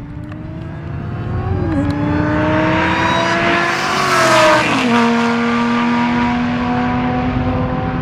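A supercharged Ford Shelby GT500 V8 and a Lamborghini Gallardo accelerating hard at full throttle, the engine note climbing in pitch. There is a gear change about two seconds in, and the pitch drops sharply as the cars go by, about four and a half seconds in, before it climbs again.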